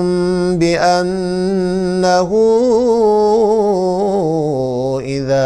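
A man reciting the Quran in the melodic tajweed style, drawing out long, ornamented notes whose pitch wavers and then steps lower, with a brief break near the end.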